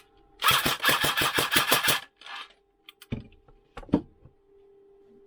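ICS CXP APE airsoft electric gun firing a short full-auto burst, about eight shots a second for a second and a half, as a test after its spring change. Two separate knocks follow a second or two later.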